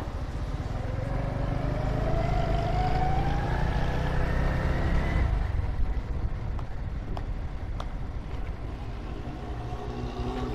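A Super Power Cheetah 110cc motorcycle's engine running at low speed. Its pitch rises over the first few seconds and falls away about halfway through, leaving a lower, steady running.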